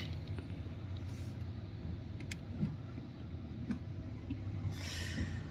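Steady low drone of a car's engine and running gear heard from inside the cabin, with a few faint clicks and a short hiss near the end.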